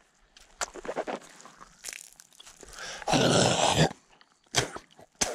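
Boots crunching and scuffing on a gravel road: scattered light crunches, a louder scraping rasp about three seconds in, and two sharp clicks near the end.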